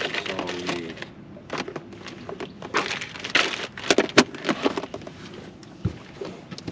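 Small hard items clattering and knocking in a plastic storage box as someone rummages through it: a run of irregular clicks and rattles.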